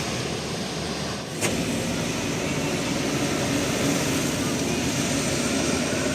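Large road vehicle's engine running with steady road noise, and a sharp click about a second and a half in.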